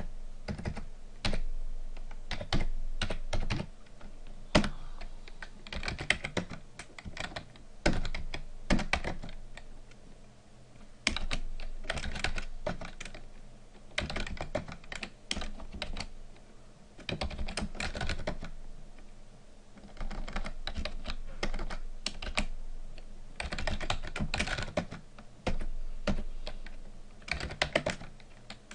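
Computer keyboard typing in quick bursts of keystrokes, with short pauses between the bursts.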